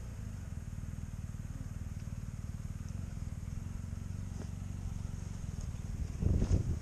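Motorcycle engine running steadily at low revs while riding slowly through mud, heard from a helmet-mounted camera, with a short louder burst about six seconds in.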